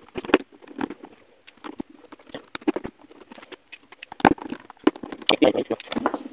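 Irregular small clicks and taps of a precision screwdriver on the screws of a smartphone's plastic midframe, and of the tool and phone being handled on a desk. The louder knocks come from about four seconds in.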